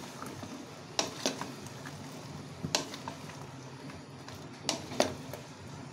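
Wooden spatula stirring chopped bottle gourd and potato in an aluminium pressure cooker, knocking against the pot about five times at uneven intervals, with a soft rustle of the vegetables in between.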